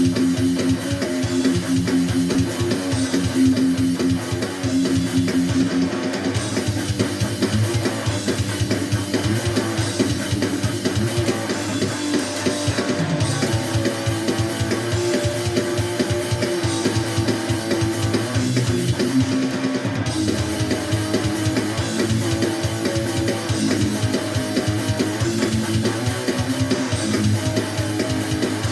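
A rough jam with strummed guitar over bass and a drum kit.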